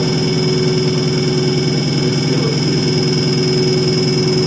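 Common rail diagnostic test bench spinning a Bosch CP1 high-pressure diesel fuel pump under test. It gives a steady mechanical running sound with a constant high whine.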